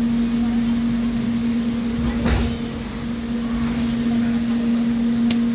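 Cabin noise of an electric airport train in motion: a steady electrical hum over a running rumble, with a brief knock about two seconds in and a short click near the end.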